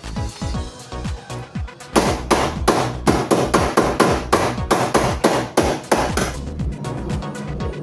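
A fast run of hammer blows, about three a second, starting about two seconds in and stopping near the end, over background music.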